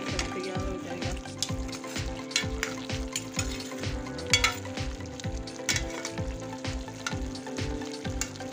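A metal spoon stirring and scraping potatoes and cauliflower around a metal pan, with repeated short clinks against the pan, over steady sizzling from the frying masala.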